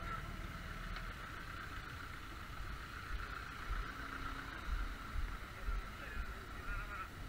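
Street traffic on a wet road: a steady hum of idling and passing vehicles, with low thumps on the helmet microphone in the middle.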